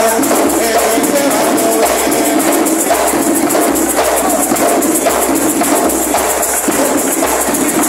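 Venezuelan San Juan parranda music: maracas shaken in a quick, even rhythm over drums, with men singing into microphones.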